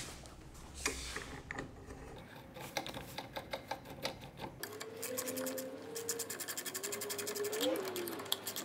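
Ratcheting wrench clicking rapidly as it tightens the bolt that holds a large contact wheel on its axle. Before that come a few scattered clicks and knocks as the wheel is fitted onto the shaft.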